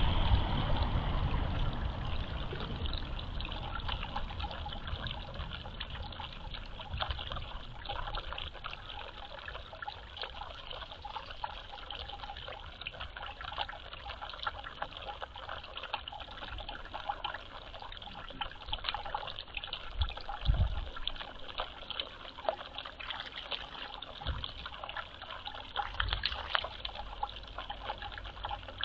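Water trickling and dripping, with a dense patter of small drips and splashes. A low rumble fades out over the first few seconds, and a couple of dull thumps come later.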